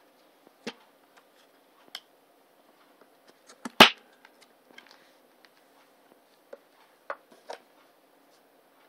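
DVD discs being handled in a plastic multi-disc case and lifted off the case's hub. Scattered small clicks and taps, with one sharp, much louder click a little under four seconds in.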